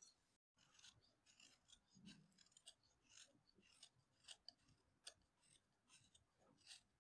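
Carving knife paring a chamfer around the end of a round wooden stool leg: faint, short scraping cuts, about two to three a second.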